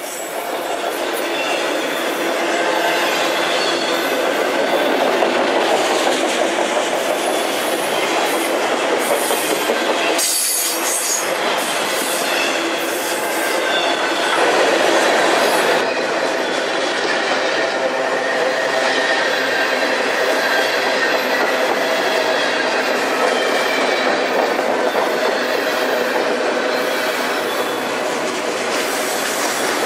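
Autorack freight cars rolling past at close range: steady wheel-on-rail rumble and clickety-clack, with thin steady squealing tones from the wheels. A short dip with a few sharp knocks about ten seconds in.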